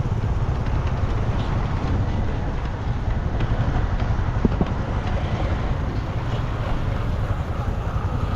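Wind buffeting the microphone: a steady, rough low rumble without any clear engine note.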